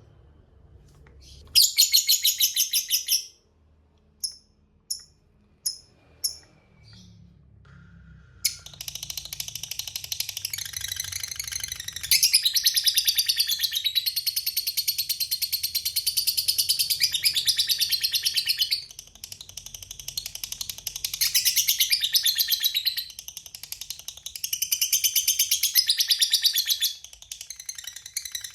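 Lovebird 'ngekek': fast, high-pitched chattering trills. A short trill comes about two seconds in and a few single chirps follow, then from about eight seconds in long unbroken trills run on with brief breaks.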